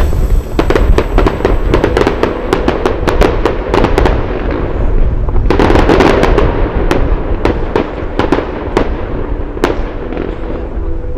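Fireworks display: rapid crackling and popping of aerial shells bursting, with a dense burst about six seconds in and the bangs thinning out toward the end.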